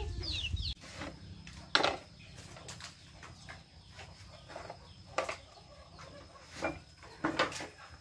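A chicken clucking briefly at the start, then scattered knocks and clinks of plates and bowls being handled on a wooden table, the loudest about two seconds in.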